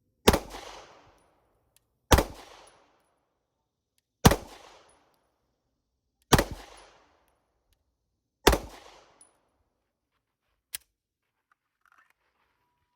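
Five shots from a Walther PDP F Series 9mm pistol, fired at a steady pace about two seconds apart, each with a short echo trailing off. A single sharp click comes about two seconds after the last shot.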